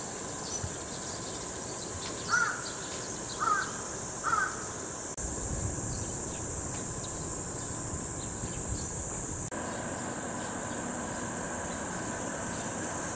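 An animal gives three short calls about a second apart, over a steady high buzz, and a low rumble rises about five seconds in.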